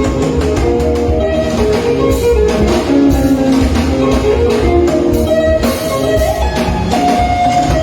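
A sungura band playing an instrumental passage: quick, interlocking electric guitar lines over a steady bass and drum kit.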